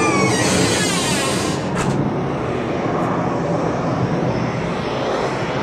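Jet airliner engines at takeoff power, heard at a distance as a steady wash of engine noise whose hiss is strongest in the first second or two.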